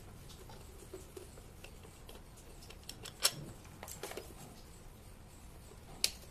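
Light metallic clicks and ticks of a screwdriver working a nut loose on a ceiling fan motor's housing bolt. Two sharp clicks stand out, one about three seconds in and one near the end, with fainter taps between.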